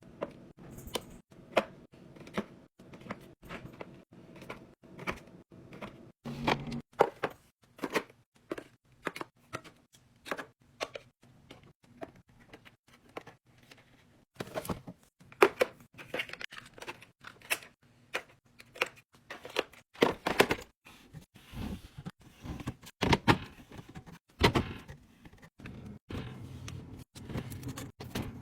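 Irregular clicks, taps and knocks of food packages and containers being handled and set down, one after another, with a few louder knocks among them.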